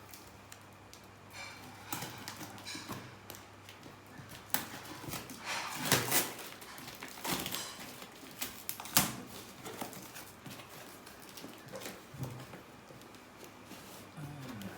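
Cardboard packaging being handled and opened by hand: irregular rustling and scraping with scattered sharp clicks and knocks, the loudest about 6 and 9 seconds in.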